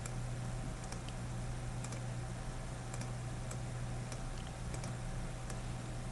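Faint, scattered clicks of a computer mouse, a few each second, over a steady low electrical hum.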